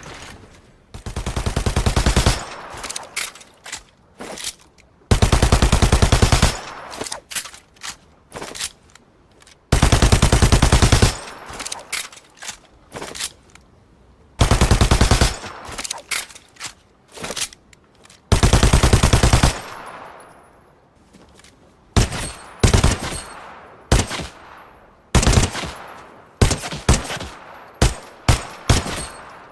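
Machine pistol firing on full automatic: five long bursts of about a second or more each, a few seconds apart, then quicker short bursts and single shots in the last third, with echo trailing after them.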